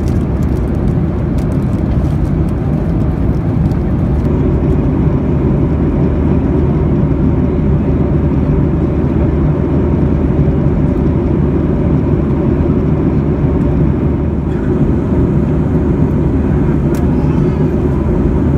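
Steady low roar inside the cabin of a Boeing 737-800 in cruise: the drone of its CFM56-7B engines and the rush of air along the fuselage. The tone shifts slightly about fourteen seconds in.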